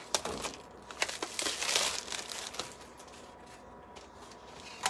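Thin clear plastic scalloped-edge plate crinkling and clicking as it is handled. The crackling is densest about a second and a half in, then dies away, with one sharp click near the end.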